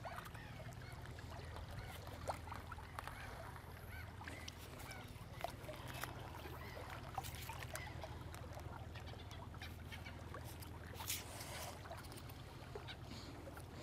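Small waves lapping on shore rocks over a low steady hum, with scattered light clicks of a plastic syringe and filter being handled.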